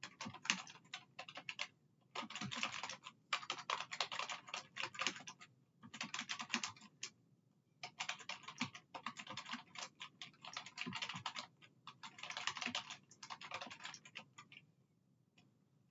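Typing on a computer keyboard: quick runs of keystrokes broken by short pauses, stopping shortly before the end.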